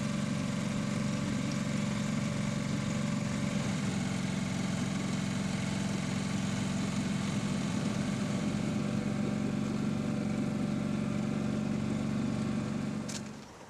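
Outboard motor of a small sailing boat running steadily under way, an even low drone; it fades out near the end.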